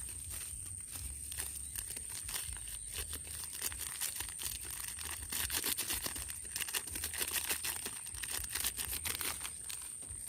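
Plastic sachet of Masako seasoning being torn open and crinkled by hand: a run of crackling rustles that gets busier after the middle.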